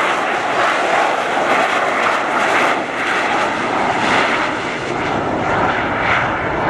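Loud, steady jet engine noise from an RAF Harrier's Rolls-Royce Pegasus vectored-thrust turbofan as the jet flies low overhead, swelling and easing slightly.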